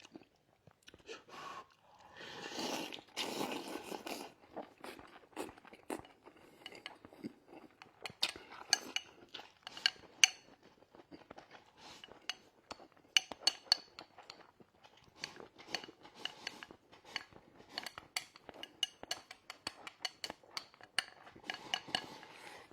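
Someone eating at a table: scattered sharp clicks of chopsticks against a bowl, with chewing in between and a short noisy stretch about two seconds in.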